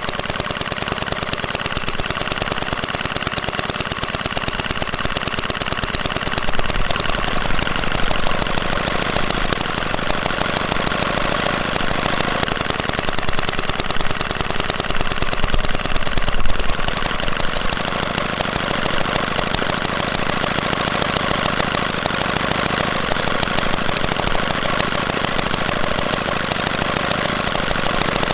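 Small Hoglet V-twin model petrol engine running steadily with a fast, even firing rhythm, briefly a little louder about sixteen seconds in.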